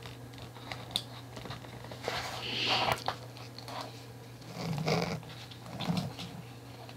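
Apple Watch band being worked out of its slot in the watch case: a small click about a second in, then faint rubbing and scraping as the stiff, new strap resists sliding out.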